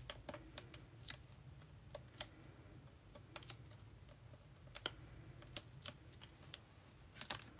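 Faint, irregular light clicks and taps from fingers and long nails pressing foam-tape squares onto a paper clock ring on a cutting mat, over a low steady hum.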